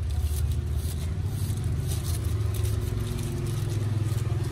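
An engine running steadily, a low hum with a fast flutter, with faint light ticks of a knife slicing through fruit.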